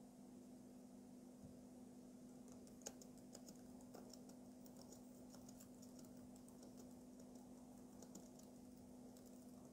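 Faint, quick, irregular key clicks of typing, from about three seconds in until near the end, over a low steady hum.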